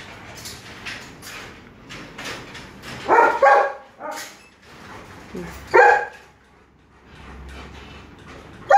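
Alaskan malamute barking: a short double bark about three seconds in, then a single bark near six seconds, with a few light clicks before the first bark.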